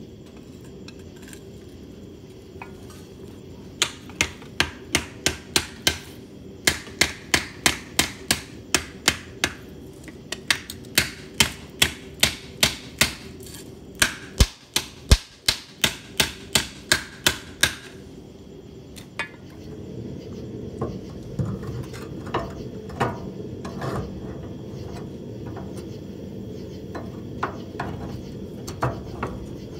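Hand hammer striking red-hot steel on an anvil, forging a bracket: runs of sharp blows about three a second, with short pauses, from about four seconds in until about eighteen seconds. From about twenty seconds in, a steady low arc-welding buzz with irregular crackles.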